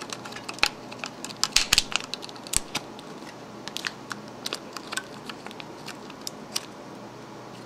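Scattered small clicks, taps and light rustling of hands handling a 2.5-inch laptop hard drive in its caddy and fitting its flex ribbon cable connector, busiest between about one and three seconds in.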